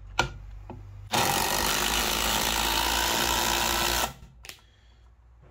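A sharp click, then a cordless impact driver hammering on a long screw in a wooden beam for about three seconds, starting about a second in and stopping suddenly.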